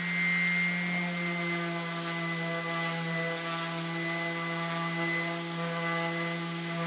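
Electric random orbital sander running steadily on a wooden guitar body: an even motor hum with a high whine above it.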